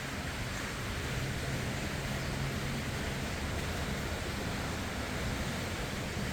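Honglan 400 mm mini ceiling fan running: a steady rush of moving air with a low motor hum.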